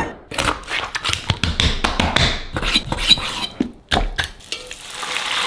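A quick, irregular run of kitchen knocks and clatters from utensils and dishes during food prep, with a steady hiss building up near the end.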